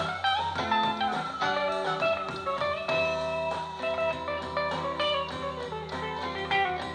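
Recorded live band music played back through a home stereo's speakers: guitar-led with bass and a steady beat.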